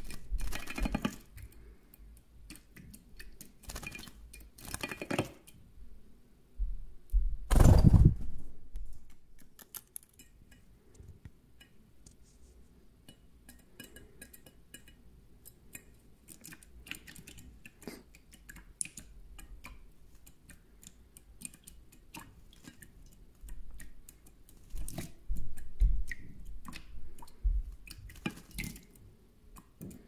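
European goldfinch bathing in a shallow stainless-steel dish of water: wing-fluttering splashes in several short bursts, the loudest about eight seconds in and another run near the end, with light drips and ticks against the metal dish in between.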